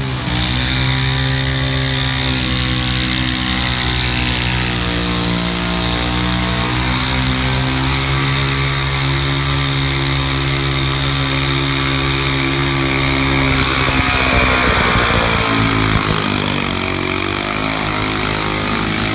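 Super stock garden tractor engine at full throttle pulling a weight-transfer sled, a loud, steady high-revving drone. About 15 seconds in the pitch drops and wavers as the tractor stops at the end of its pull.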